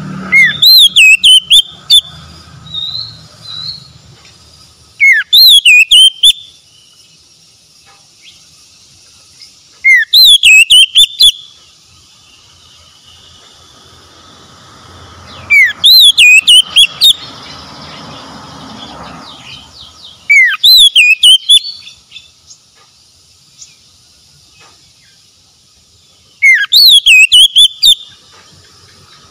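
Oriental magpie-robin singing six short, loud phrases about five seconds apart, each opening with a rising whistle and running into quick looping high whistles.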